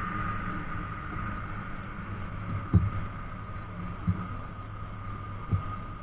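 A boat engine running steadily at low revs, with three dull knocks about a second and a half apart.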